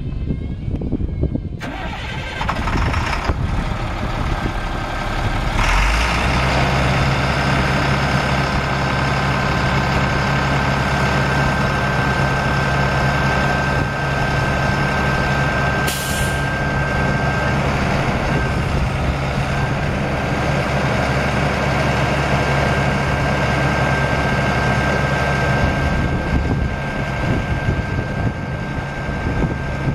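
Caterpillar 3126 six-cylinder turbo diesel engine running, stepping up to a higher steady speed about six seconds in while it works the truck's hydraulic boom. A steady high whine rides over the engine.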